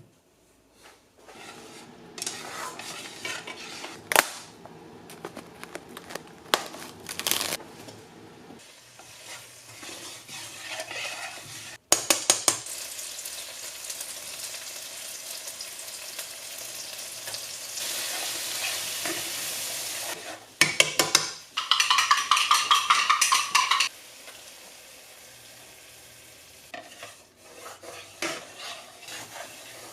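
Breakfast cooking in a kitchen: utensils clinking against pans and dishes, then food sizzling in a frying pan from about twelve seconds in. A quick run of rapid strokes on cookware comes about twenty-one seconds in.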